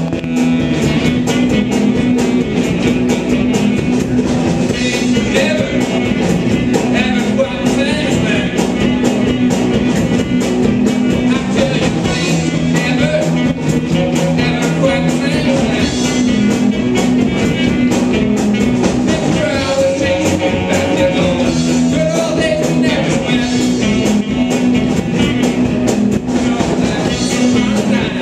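Live rock band playing: electric guitar, bass and drums, with saxophone and a sung lead vocal over the top.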